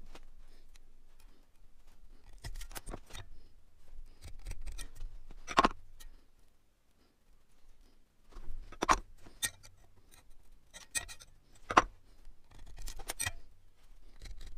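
Steel rule, scriber and engineer's square handled against a flat steel bar while it is marked out: short scratchy scrapes and several sharp metallic clicks a few seconds apart.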